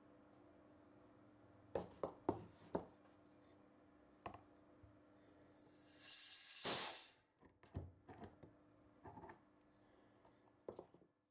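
Scattered clicks and knocks of metal airgun parts being handled on a tabletop, with one short hiss lasting about a second and a half in the middle.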